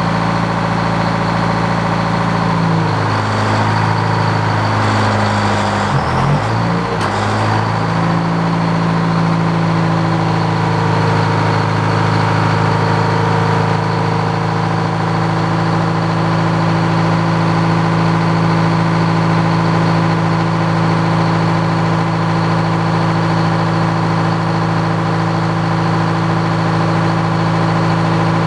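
Frick sawmill running under its drive engine: a steady, loud engine note. A few seconds in, the pitch sags and wavers, dipping lowest about six seconds in, as the engine takes load. It then recovers and holds steady.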